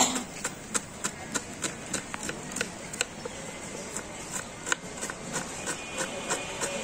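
Kitchen knife chopping red onion on a wooden cutting board: quick, even chops at about three a second.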